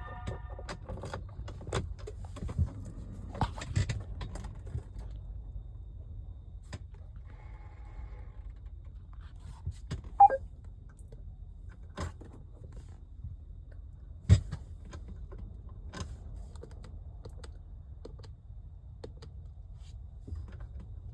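Keys jangling and scattered sharp clicks over a low steady hum, with two louder knocks about ten and fourteen seconds in; no starter cranking or engine is heard.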